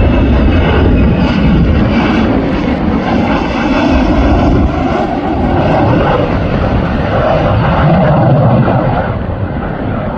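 Jet engines of a twin-engine F-15 Strike Eagle-type fighter flying over on approach, a loud steady rushing noise that eases slightly near the end.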